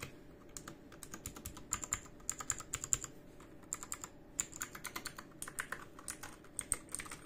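Typing on a Redragon K630 RGB 60% mechanical keyboard with blue switches: a quick, irregular run of clicky keystrokes with a few short pauses.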